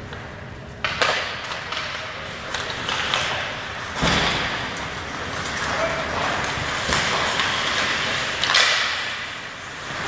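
Ice hockey play in an indoor rink: skates scraping on the ice under a steady hiss, with several sharp knocks of sticks, puck and boards, the loudest about four seconds in.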